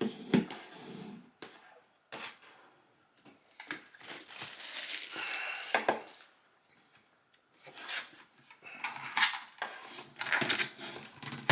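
Handling noise as gaming peripherals and their packaging are moved about and set down on a desk: knocks and clatter near the start and the end, with a longer rustle in the middle.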